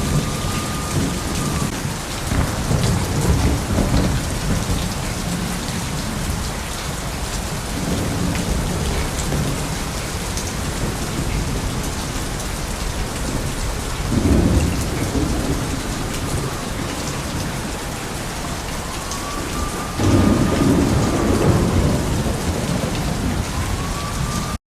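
Steady rain with thunder rumbling three times: about two to four seconds in, briefly about fourteen seconds in, and loudest and longest from about twenty seconds in. It cuts off suddenly at the end.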